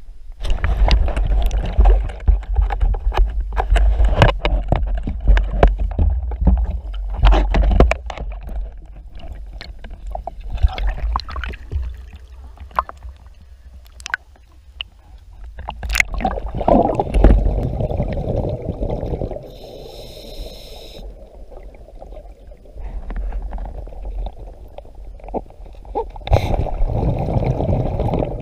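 Water sloshing and splashing against a waterproof camera housing at the surface, with knocks from handling the camera. Then muffled underwater sound, with bursts of bubbling scuba exhaust about two-thirds of the way through and again near the end.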